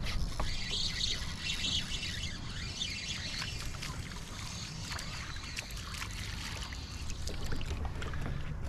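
Water trickling and splashing around a kayak, with many small ticks, busiest in the first few seconds, over a steady low rumble of wind on the microphone.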